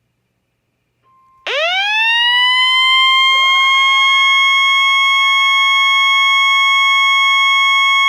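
Siren-like emergency alert tone winding up: one tone sweeps up in pitch and levels off, a second tone joins with its own rising sweep about two seconds later, and the two then hold steady together. It is the attention signal that comes before a broadcast severe thunderstorm warning.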